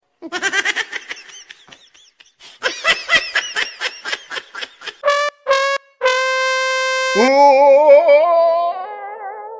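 Cartoon comedy sound effects: a run of short pitched chirps, then a quick pattering run of about four pops a second, then two short horn-like blasts, a long held brass note about six seconds in, and a wobbling, slowly sagging brass wail near the end.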